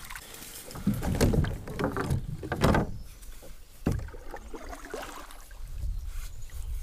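Kayak paddling: a double-bladed paddle dipping and pulling through the river water, with three louder strokes in the first four seconds and steadier, softer water sounds after.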